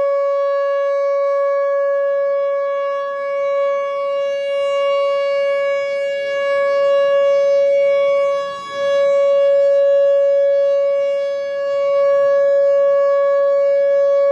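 Whelen WPS-4004 electronic outdoor warning siren sounding a loud, steady single-pitch alert tone. The level rises and falls about every three seconds as the rotating speaker head sweeps past.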